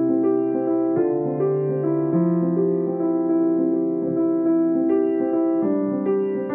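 Background music on piano or electric piano: slow, held notes and chords that change every second or so.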